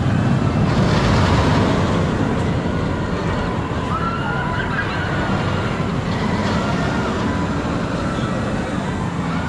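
Roller coaster ride heard on an onboard camera: a loud, steady rush of wind and track noise, with a few wavering high tones rising and falling over it about four and six and a half seconds in.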